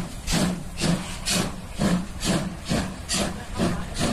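German Class 01 steam locomotive working past under steam, its exhaust beating in even chuffs about twice a second, with steam hissing from the open cylinder drain cocks.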